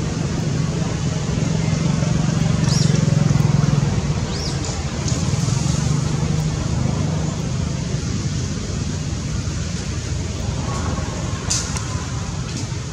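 Steady low rumble of background noise, loudest about two to four seconds in, with a few brief high chirps around three and four and a half seconds and a sharp click near the end.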